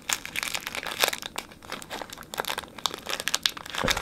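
Foil Pokémon booster pack wrapper crinkling as it is handled, a dense run of irregular sharp crackles.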